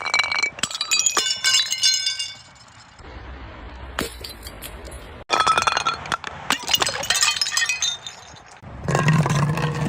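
Glass bottles breaking: sharp cracks and shattering followed by shards clinking and ringing, in several separate bursts cut one after another, with a short quieter stretch before a final burst near the end.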